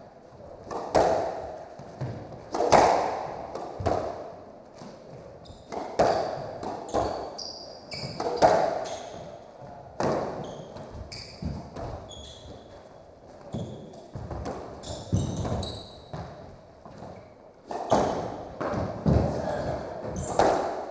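Squash rally: the rubber ball cracking off rackets and the court walls every second or so, each hit echoing briefly, with short high squeaks of court shoes on the hardwood floor. The hits thin out partway through and pick up again near the end.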